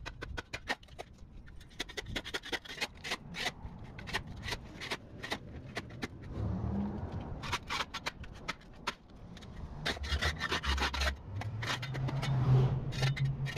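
Metal blade of a long-handled shovel scraping and chopping packed dirt and dry grass in quick, irregular strokes. A low steady hum joins in the last couple of seconds.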